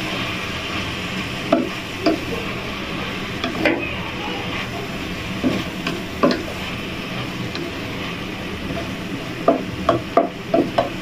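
Chopped cabbage and herbs sizzling in a stainless-steel pot as they are stirred with a wooden spoon, the cabbage wilting in the heat. The spoon knocks against the pot every second or so, with a quick cluster of knocks near the end.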